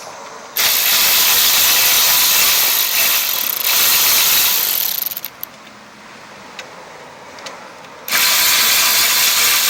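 Cordless power tool spinning a 5/16 socket, running off the engine cover bolts in runs of a few seconds, with a pause of about three seconds in the middle broken by a few clicks.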